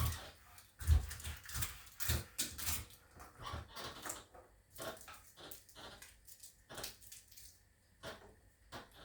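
Garlic being peeled by hand: the dry, papery skins crackle and rustle in short irregular bursts. There is a loud dull thump about a second in and another about two seconds in.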